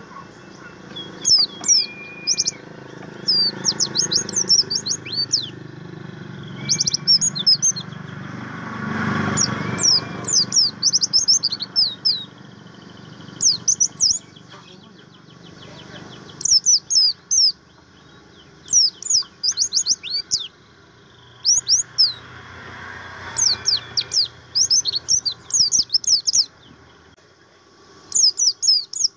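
Buxtoni white-eye (pleci) singing: quick bursts of rapid, high-pitched twittering chirps, one burst every second or two, over a low background rumble that swells twice.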